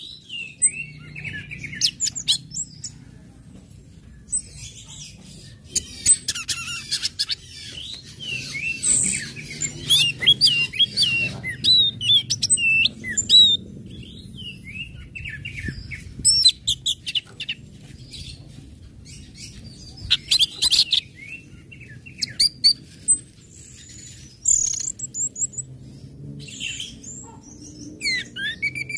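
Orange-headed thrush (anis merah) giving rapid, sharp chip calls, the 'ngecit' of bird keepers, mixed with short whistled song phrases in irregular bursts. A faint, steady low hum lies beneath.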